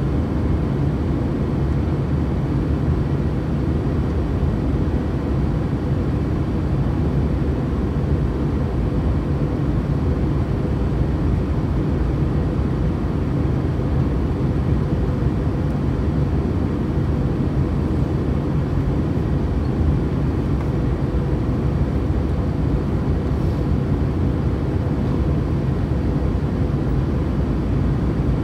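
Airbus A320 airliner's steady drone of engines and rushing air, strongest in the low range, with a faint steady hum above it.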